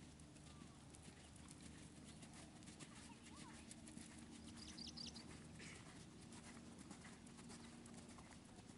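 Faint hoofbeats of a horse trotting on a soft arena surface, with a bird chirping briefly about five seconds in, over quiet outdoor ambience.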